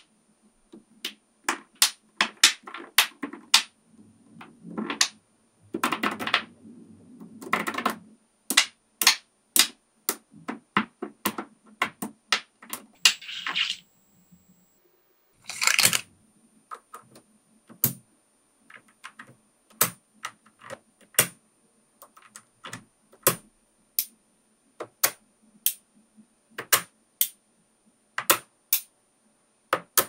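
Small neodymium magnet balls clicking and snapping together as sheets of them are handled and pressed into place. The clicks come sharp and irregular, with a few longer rattling clatters about six seconds in and again around the middle.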